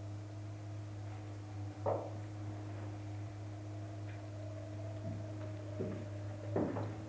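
Steady low electrical hum with a fainter steady tone above it, broken by a few brief soft knocks or rustles about two seconds in and again near the end.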